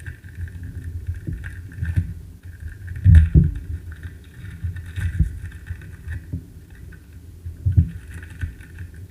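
Handling noise from trading-card packs being opened and the cards handled close to the microphone: a low rumble with irregular dull thumps and a few light clicks, the loudest thump about three seconds in and another near the end.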